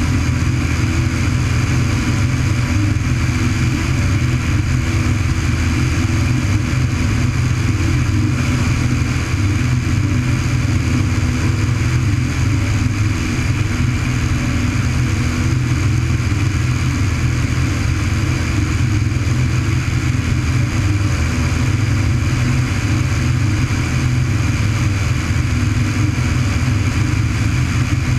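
Single-engine high-wing training aircraft's piston engine and propeller running steadily at climb power just after takeoff, with air rushing past the wing-mounted microphone.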